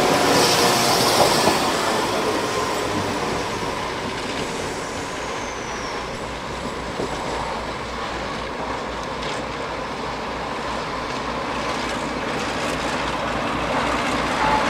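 Heritage railway train running along the line, its wheels and carriages rumbling on the track. It is loudest at the start, with a brief high squeal in the first couple of seconds, eases off through the middle and builds again near the end.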